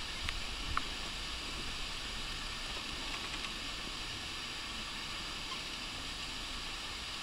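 Steady background hiss of outdoor ambience, with a couple of faint clicks in the first second.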